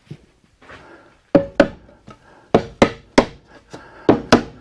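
About seven sharp knocks on solid wood boards, mostly in quick pairs, starting a little over a second in, as the glued edge-joined boards are knocked together onto their dowels.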